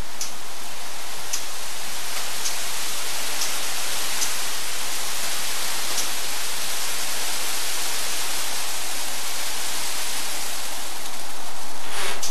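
Steady airy hiss of cooling fans blowing into plastic garbage bags, with scattered faint ticks and a louder surge of hiss near the end.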